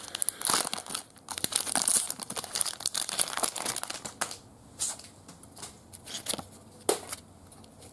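Foil wrapper of a trading card pack crinkling and tearing as it is opened, then a few short clicks and rustles as the stack of cards is pulled out and handled.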